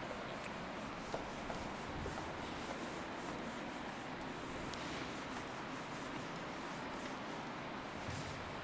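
Whiteboard being wiped clean with a duster: a faint, steady rubbing hiss made of quick repeated strokes across the board.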